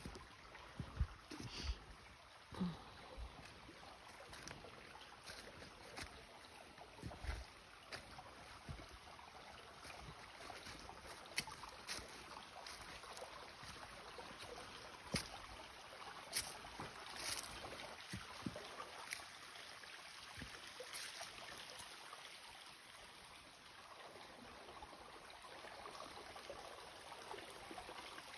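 A small stream of water trickling and running steadily, with scattered light clicks over it.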